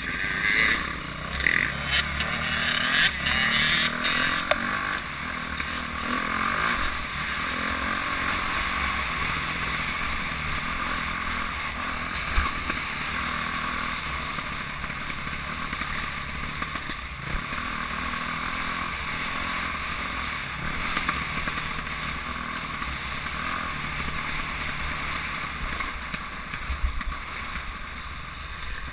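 Dirt bike engine running as the bike rides along a rough dirt trail, heard close from on board, with rushing noise. Several sharp knocks in the first few seconds.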